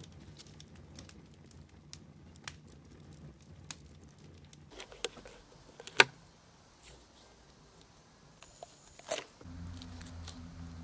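Handling of a fish on a cutting board with a knife: scattered small taps and clicks, with a sharp knock about six seconds in and another near nine seconds. A low steady buzz starts near the end.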